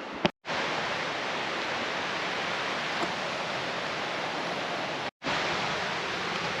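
Steady rushing of a waterfall, broken twice by brief total silences, about half a second in and after about five seconds.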